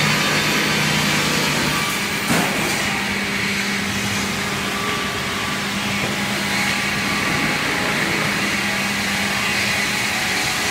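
Sawmill edging saw running, a steady machine hum with a constant low drone, with one sharp knock about two seconds in.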